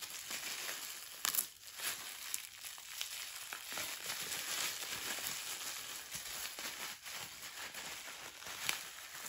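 Plastic wrapping and crumpled packing paper crinkling and rustling as they are handled in a cardboard box, with a few sharper crackles.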